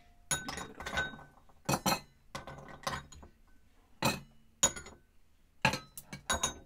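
Ice cubes dropped one by one with tongs into a metal cocktail shaker, a string of separate clinks with short pauses between them.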